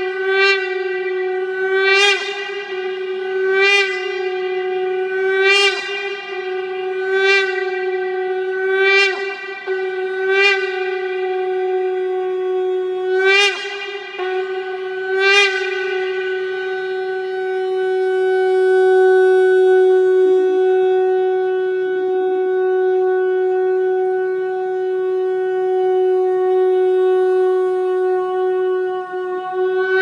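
A shofar being blown: a loud, steady horn tone broken by short sharp accents about every one and a half to two seconds, then from about halfway a single long held note that ends with a quick upward flick.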